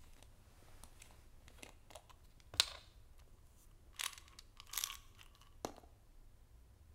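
A few short crinkles and rustles of something crinkly, like paper or a wrapper, being handled in the hands. The loudest come about two and a half seconds in and again between four and six seconds, over a faint low room hum.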